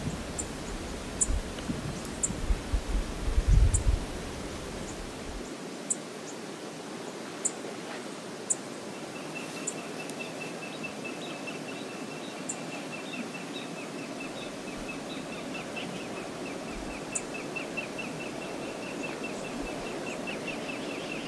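Steady rush of a river flowing over shallows, with wind buffeting the microphone in the first few seconds. Faint short high chirps come and go, and from about a third of the way in a fast, high-pitched ticking series runs on underneath.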